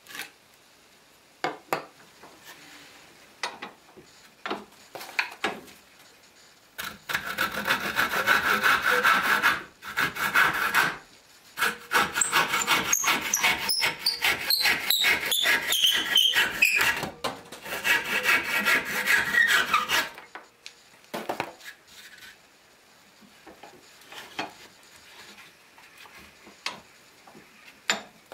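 Handsaw cutting reclaimed pine clamped in a bench vise: about thirteen seconds of quick back-and-forth strokes with two short pauses. Partway through, a high ringing note slides steadily down in pitch. Light clicks and taps come before and after the sawing.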